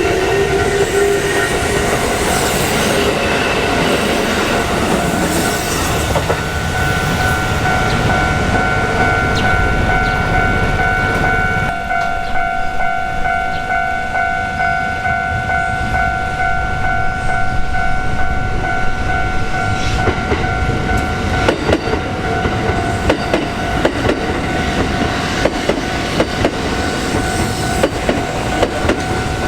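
Japanese level-crossing warning bell ringing steadily as a Kintetsu Osaka Line train passes. The train's dense rumble gives way about twelve seconds in to sharp wheel clicks over the rail joints, which continue under the bell.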